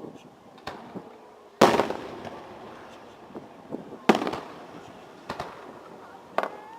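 Aerial firework shells bursting: about five bangs, the two loudest about a second and a half in and about four seconds in, each trailing off in a fading rumble.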